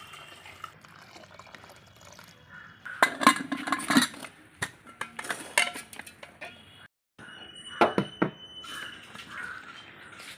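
Metal cooking pots and utensils clinking and clattering in several short bursts while ingredients and water are added to a cooking pot.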